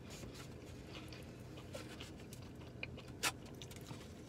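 Someone eating crispy fried chicken fingers from a takeout box: small scattered clicks and crackles of handling and dipping, with one sharper crunch a little over three seconds in as a bite is taken.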